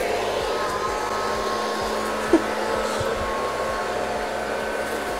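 Robot vacuum cleaner running: a steady whirring hum of its suction motor and brushes as it drives over crumbled polystyrene foam, with one short sharp sound about two and a half seconds in.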